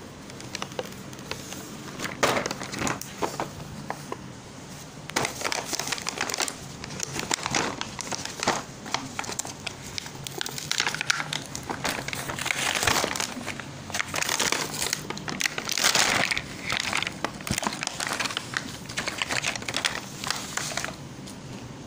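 Clear plastic packaging crinkling and crackling in irregular bursts as it is handled and pulled off plastic toy doll-house furniture.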